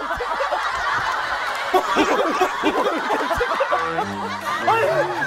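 Men laughing hard, several voices cackling over one another in quick short bursts.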